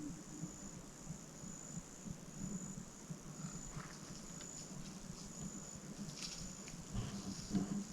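Insects chirping in the woods: a high-pitched pulse repeating about once a second over a low steady drone, with a few faint rustles and clicks near the end.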